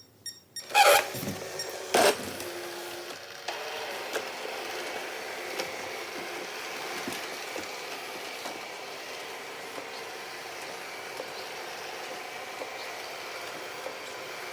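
Ecovacs DM82 robot vacuum starting a cleaning run: two short loud sounds about one and two seconds in, then its suction fan and brushes running steadily from about three and a half seconds on, working normally after a repair for moisture damage.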